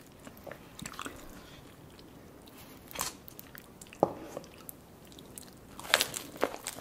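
Close-miked eating sounds: wet mouth clicks and chewing, with a bite into curry-dipped garlic naan about six seconds in. Sparse sharp clicks, with one loud click about four seconds in and the loudest cluster at the bite.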